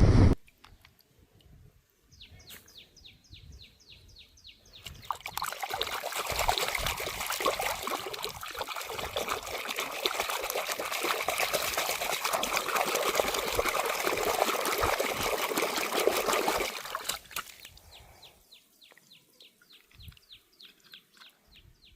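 Running water splashing for about twelve seconds, the sound of toys being rinsed, with a quick run of short scratchy strokes, about five a second, before it starts and again after it stops.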